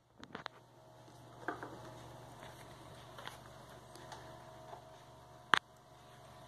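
Handling noise from a phone camera being moved: a few faint clicks and light knocks over quiet room tone, with the sharpest click about five and a half seconds in.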